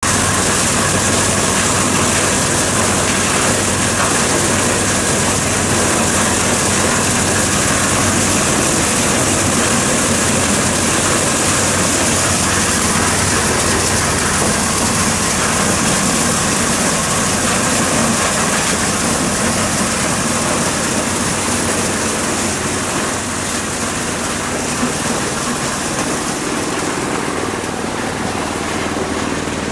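Engine-driven corn sheller running steadily: a constant engine hum under a loud, even hiss from the threshing drum. The hiss eases slightly near the end.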